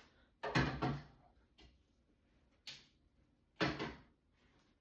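Knocks and clunks of items being handled and set down in a refrigerator, with two louder clusters of quick knocks about half a second in and about three and a half seconds in, and two fainter single knocks between them.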